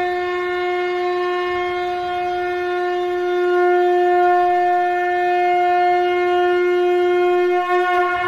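Conch shell (shankha) blown in one long, steady note, which wavers and breaks up near the end.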